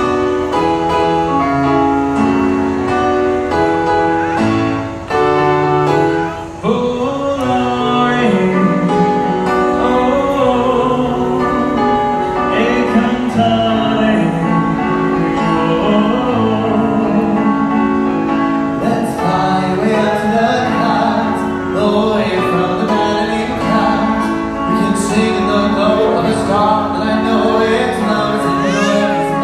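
Live classic Italian song: sustained instrumental accompaniment opens, then a vocalist comes in about seven seconds in, singing with vibrato over it.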